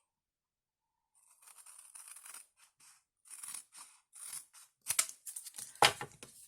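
Scissors cutting through glitter cardstock in a run of short snips starting about a second in, with two sharper, louder snaps near the end.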